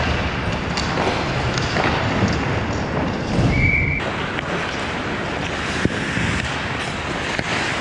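Ice hockey play heard from close behind the net: a steady rush of skates on ice and rink noise, with scattered sharp clicks of sticks and puck. A brief high tone sounds a little past three seconds in, and the background noise changes abruptly about four seconds in.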